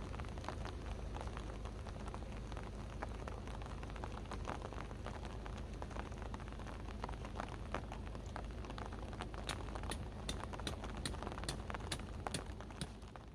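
Steady rain falling, with many single drops ticking sharply on a nearby surface.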